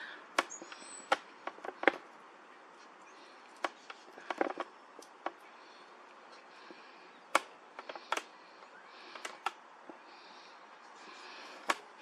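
European goldfinch pecking and cracking black sunflower seeds in a plastic feeder tray: about a dozen sharp, irregular clicks and cracks.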